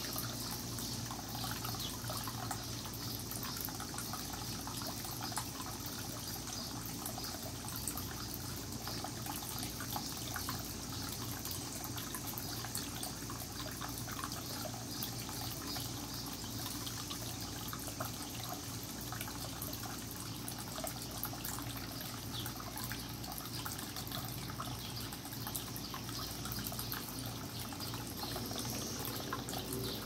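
Water trickling and splashing steadily as it pours from the spout of a cascading-jug garden fountain into the pot below.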